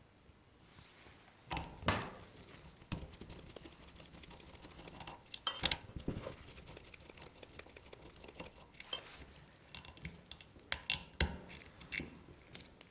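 Irregular metallic clinks and knocks of tools and small metal parts being handled as a vintage electric table fan is taken apart, with louder knocks about two seconds in, mid-way and near the end.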